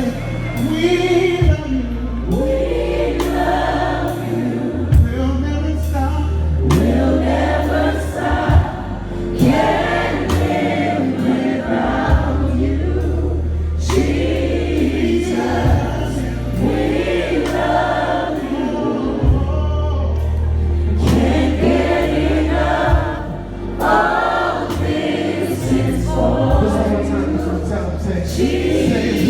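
Gospel choir singing with a live band, over long held bass notes and occasional drum hits.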